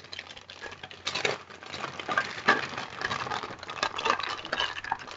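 Packaging being handled: irregular rustling and crinkling with small clicks and light knocks.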